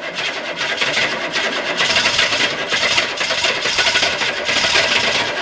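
GM 6.2-litre diesel V8 being cranked over by its direct-drive starter, turning over in a steady rapid rhythm without firing: a cold no-start in freezing weather, which the owner puts down to too little glow-plug time.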